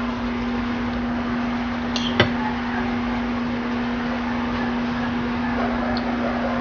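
Steady low machine hum over a constant hiss, with one sharp click about two seconds in.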